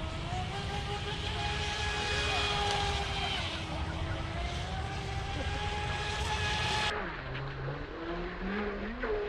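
Wltoys WL916 brushless RC speedboat running across the water, its motor whine gliding up and down in pitch with the throttle. About two seconds before the end the whine drops low, then climbs back up as the boat accelerates again, over a steady low rumble.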